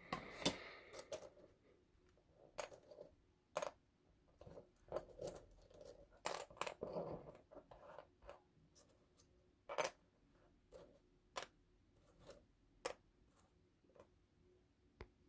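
Thin laser-cut wooden model parts being picked up, slid and set down on a cutting mat: scattered light clicks and taps, with a few short scrapes about five to seven seconds in.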